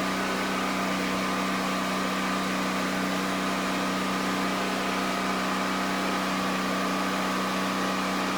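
Steady machine hum: a constant low drone with a faint higher whine, unchanging throughout.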